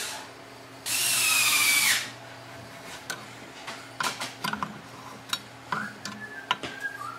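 Ski-Doo belt deflection adjustment tool clicking and clinking against the secondary clutch's helix adjuster as it is worked by hand: scattered light metal clicks. About a second in comes a louder steady whirring rush that lasts about a second.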